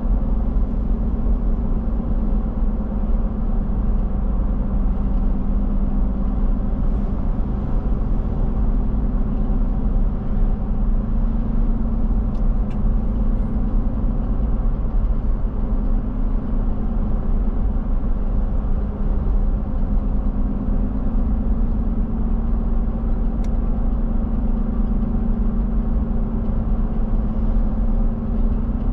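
Steady engine and road noise of a car driving along at an even speed, a low hum that neither rises nor falls. A few faint ticks about twelve seconds in.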